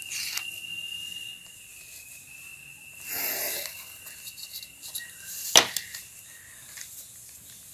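Handling of a plastic ruler and pen on a paper workbook: a short rustle about three seconds in and one sharp click a little after five seconds. A faint steady high whine runs underneath until the click.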